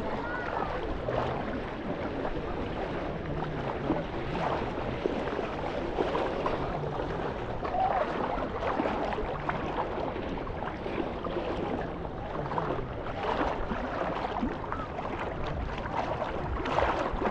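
Beach ambience: a steady wash of water at the shore with faint, distant voices of people around.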